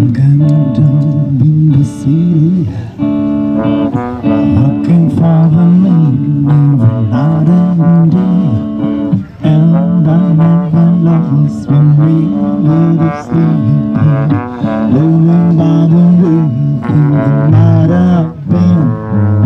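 Rock band playing an instrumental passage live: a lead melody over a moving bass line and the rest of the band, with no singing.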